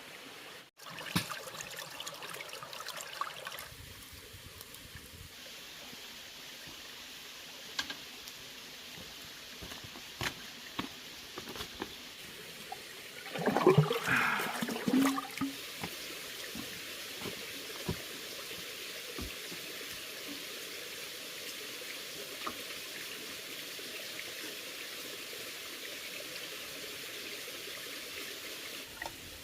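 Water running or trickling, with scattered clicks and knocks, and a louder cluster of knocks about halfway through.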